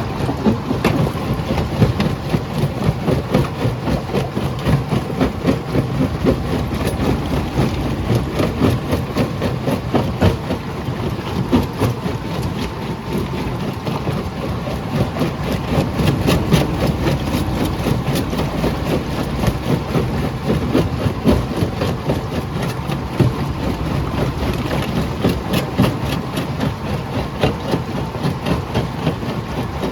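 Jaw crusher running under load, with a steady heavy rumble and constant irregular rattling and knocking.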